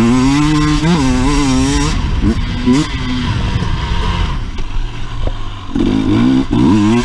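Husqvarna enduro motorcycle engine under hard riding, revving up and down with the throttle. The engine falls back and runs quieter through the middle, then revs up again about six seconds in.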